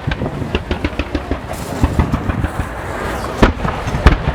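Fireworks going off: a rapid string of sharp pops and crackles, with louder bangs about three and a half and four seconds in.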